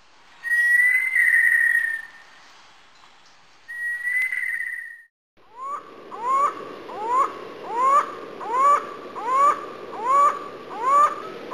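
Bird-like whistled calls: two long whistles in the first few seconds, then a run of short calls, each rising and falling, repeating steadily about every half second.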